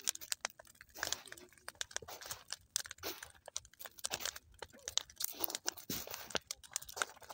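Campfire crackling, with frequent irregular sharp pops and snaps.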